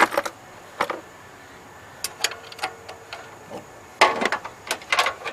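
Hand tools clicking and knocking against metal in irregular, scattered strikes, loudest at the start and around four seconds in.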